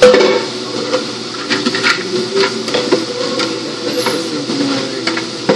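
Steady machine hum of a commercial kitchen, with scattered clicks and light knocks from a ceramic plate being handled on a stainless-steel worktable; the sharpest knock comes right at the start.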